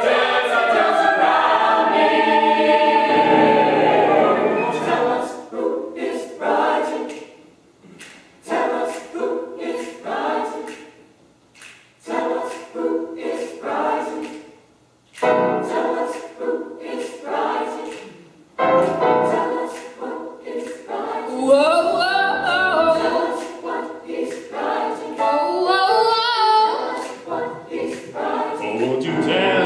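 A choir singing in phrases, with brief pauses between them.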